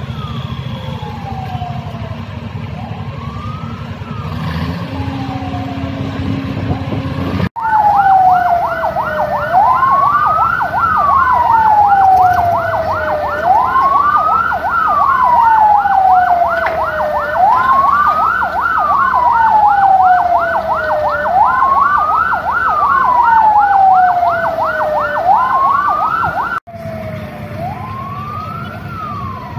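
A siren wailing, its pitch rising quickly and falling slowly about every four seconds. After an abrupt cut about seven seconds in, it is much louder with a fast warbling layer on top. It cuts back to a fainter wail over a low rumble a few seconds before the end.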